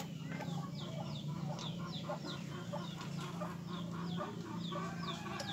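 Chickens clucking and chirping in the background, short falling calls a few times a second, over a steady low hum. A single click comes right at the start.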